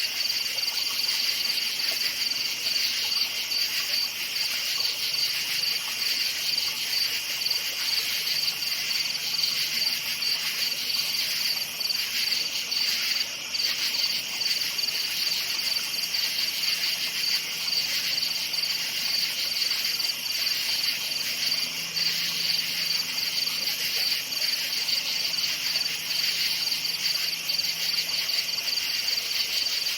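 Chorus of crickets chirping steadily, a dense, finely pulsing high trill at two pitches that never breaks.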